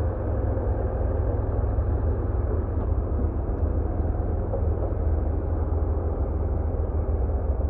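Steady low outdoor rumble with a faint hum in it, even throughout, with no distinct knocks or other events.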